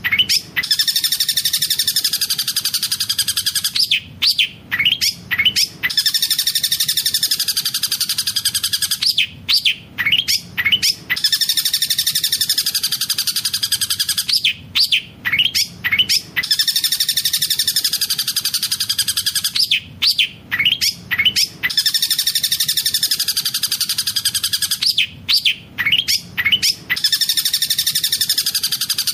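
Long-tailed shrike (cendet) singing a fast rolling song that imitates the tengkek buto kingfisher. Each phrase is a burst of quick sharp notes followed by a long rapid trill, and the phrase repeats about every five seconds.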